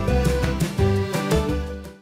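Background music with a steady beat, bass and melody notes, fading out near the end.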